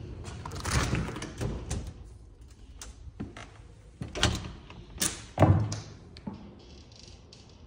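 Clicks, clunks and knocks of doors being unlatched and opened: first the lever handle and deadbolt of an interior door, then the latch of a glass storm door. The loudest knock, with a low thud, comes about five and a half seconds in.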